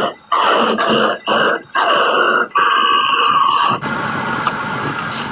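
Wood lathe turning a spinning wooden spindle while a hand-held turning tool cuts it in repeated passes, each cut lasting about half a second to a second with short breaks between. About four seconds in the cutting stops, leaving a steadier, quieter sound.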